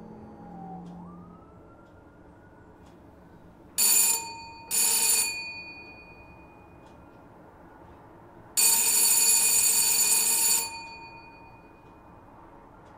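An electric buzzer sounding three times, two short presses about a second apart and then one long press of about two seconds, each starting and stopping abruptly with a harsh, steady buzz.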